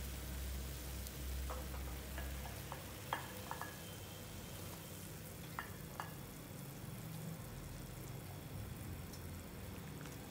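Water boiling hard around pork ribs in a ceramic pot, a steady bubbling hiss. A low rumble under it drops away about two and a half seconds in, and a few light clicks come in the first six seconds.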